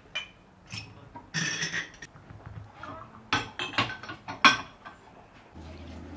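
Small glass tea glasses, saucers and spoons clinking as they are gathered and stacked onto a tray, with a short scrape early and a run of sharp ringing clinks in the second half.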